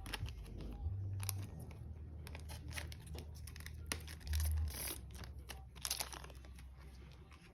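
Trading cards and a foil booster-pack wrapper being handled: scattered crinkles, rustles and light taps, with a couple of longer crinkling passes around the middle.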